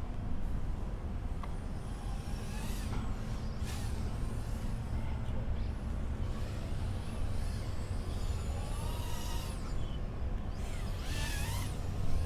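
Electric RC car driving, heard from a microphone mounted on the car: a steady low rumble of the chassis and tyres over the ground, with its electric motor whining up and down in pitch as the throttle changes.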